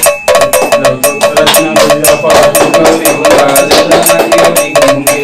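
Devotional music with fast, steady metallic clinking of small hand cymbals, several strikes a second, under singing voices.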